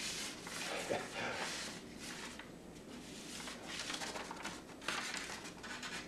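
Marker scratching across a paper strip in repeated short strokes as it is coloured in, with the paper rubbing under the hand; the strokes ease off for a second or so midway.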